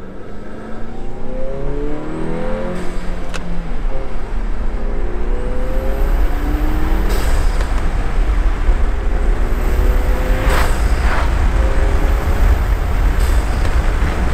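2019 Volkswagen Jetta GLI's turbocharged 2.0-litre four-cylinder, breathing through an Integrated Engineering cold air intake, accelerating hard through several gears. Its pitch climbs in each gear and drops at each shift, about every three seconds, with a short rush of noise at every shift and a faint high whistle rising with the revs. A loud low road and wind rumble grows as the car gathers speed.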